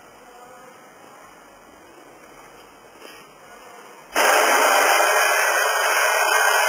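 Quick Mill Monza super-automatic espresso machine's built-in grinder switching on suddenly a little after four seconds, just after a button press, and running with a loud, steady whirr as the brew cycle starts.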